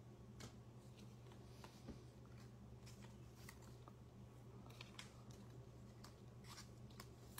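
Near silence, with faint, scattered ticks and rustles of trading cards being sorted by hand and set down, over a steady low hum.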